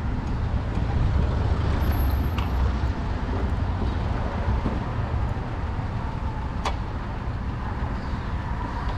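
Steady low background rumble, with a single faint click about two-thirds of the way in.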